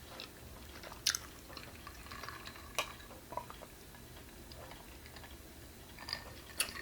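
Faint chewing and mouth sounds of someone eating pizza, with a few scattered soft clicks and smacks.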